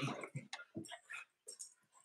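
Dogs playing on a tile floor: a scatter of short, soft clicks and scuffles from their claws and movement, irregular and without pause.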